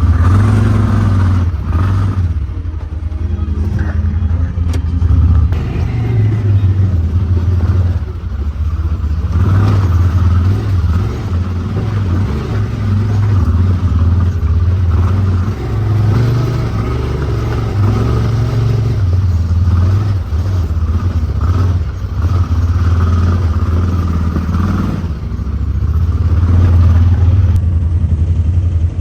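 Honda Talon side-by-side's 999 cc parallel-twin engine running loudly while driving a trail, throttle rising and easing every few seconds.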